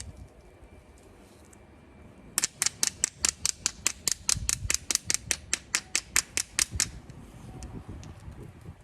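Obsidian being knapped: a quick run of about two dozen sharp, high clicking taps, about five a second, starting a couple of seconds in and stopping near seven seconds.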